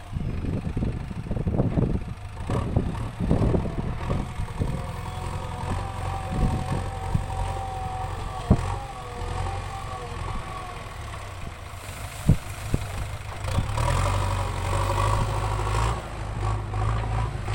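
Backhoe loader's engine running steadily, with a string of irregular knocks and clunks in the first few seconds, a wavering whine through the middle, and two sharp knocks later on.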